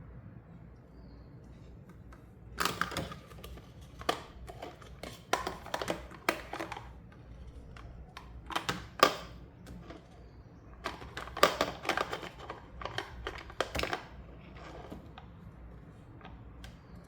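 Toy packaging and small plastic doll-playset pieces being handled: irregular runs of sharp clicks and crinkly rustles, starting a few seconds in and stopping a few seconds before the end.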